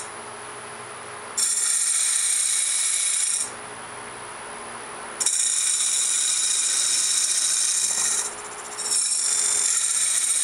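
Wood lathe running with a steady hum while the cutter of a sphere-turning jig makes three cutting passes across the spinning sumac blank. Each pass is a loud, hissing, high-pitched cut lasting two to three seconds, starting about one and a half, five and nine seconds in.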